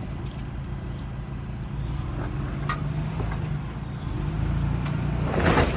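Ford Bronco engine running at low revs as it crawls over rocks, with a low steady hum that swells a little in places. A louder rush of noise builds near the end.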